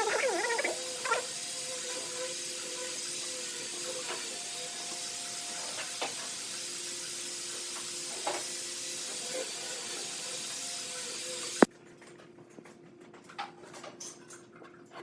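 Steady hiss with a faint steady hum and a few light clicks, opening with a brief warbling pitched sound. About twelve seconds in a sharp click is followed by a sudden drop to much quieter, scattered small clicks.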